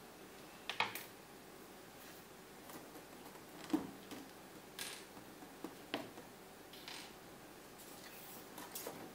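Several short taps and brief rustles of a sheet of paper being handled and pressed against a wooden board, the loudest tap a little under four seconds in.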